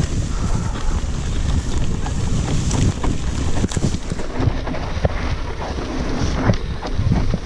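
Mountain bike descending over rough, grassy ground: a steady rumble of wind buffeting the action camera's microphone and tyres rolling over bumpy terrain, broken by frequent short knocks and rattles from the bike.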